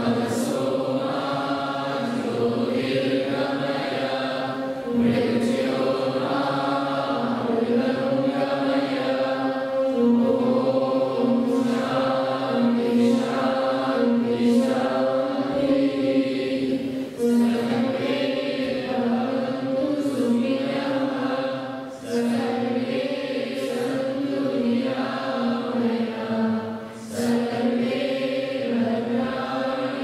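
A man chanting a devotional hymn to Sri Krishna into a microphone, in long held melodic phrases with short pauses between them.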